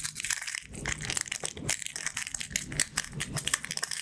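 Pins of a pin art toy clicking and clattering as they are pushed and fall back, a rapid, uneven stream of small clicks.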